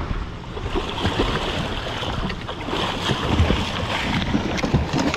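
Wind buffeting the microphone and water sloshing against the side of a fibreglass fishing boat, with scattered knocks and handling bumps.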